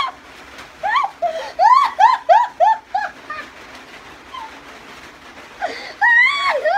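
Two women laughing hard in high-pitched bursts: a quick run of about three 'ha's a second from about one to three seconds in, then another laugh near the end.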